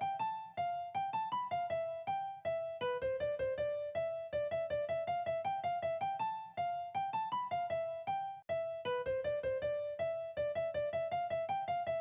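Background music: a simple piano-like keyboard melody of single notes struck about four a second, each fading quickly, in short phrases with brief pauses that repeat.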